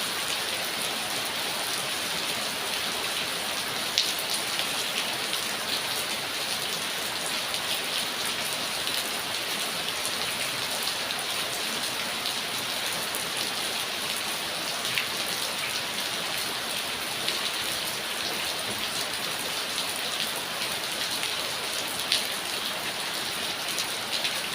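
Steady rain falling, an even hiss with scattered sharper drip ticks, a few louder ones standing out.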